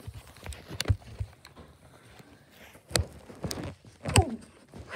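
A few scattered knocks and rustles from a phone camera being handled and moved around.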